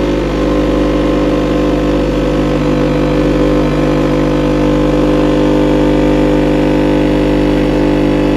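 Philips Senseo Switch pod coffee machine brewing a cup, its pump giving a loud, steady hum as the coffee runs into the mug.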